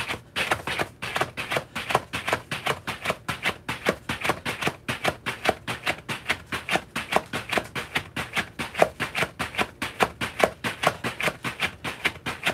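Heavy battle ropes slapping the floor in a fast, even rhythm, about four slams a second. Both ropes are driven down at the same time in double-arm drum waves.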